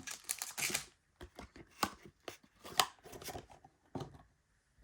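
Pokémon trading cards and cardboard kit packaging being handled: a run of irregular light clicks, taps and rustles.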